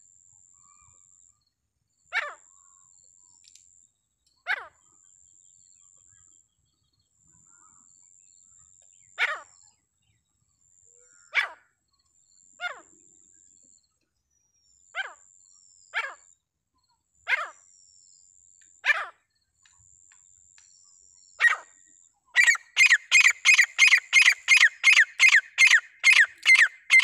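A teetar (francolin partridge) calling: single sharp calls that drop in pitch, a second or two apart, then, about four seconds from the end, a fast run of calls at three to four a second.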